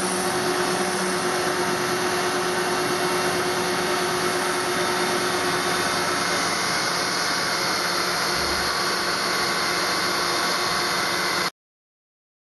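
Newing Hall Pantocut CNC router running as its spindle cutter engraves lettering into Portland stone: a steady machine hiss and whine that cuts off suddenly near the end.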